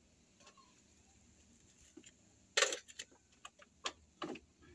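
Clanks and clicks of metal rigging hardware as line-array speaker cabinets are pinned together. It is quiet at first, then one sharp clank comes about two and a half seconds in, followed by a few lighter clicks.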